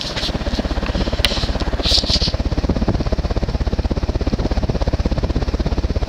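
Union Hugger ceiling fan running on high speed, its blades pushing air that buffets the microphone in a rapid, even low pulse.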